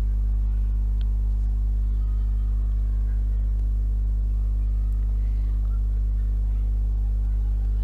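A steady, unchanging low hum with a deep drone and a few fainter tones above it.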